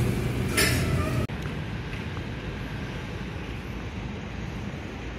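Steady low background rumble, with a short paper rustle about half a second in as a menu page is turned. The sound drops abruptly at a cut, and a quieter, even rumble carries on.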